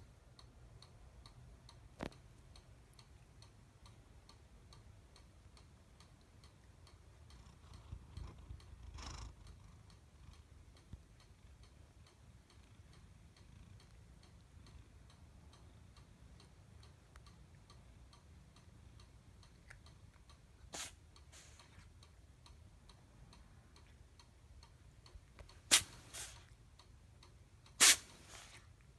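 Long-haired black cat sneezing: a few short, sharp sneezes in the last several seconds, the loudest near the end, with only faint sounds before them.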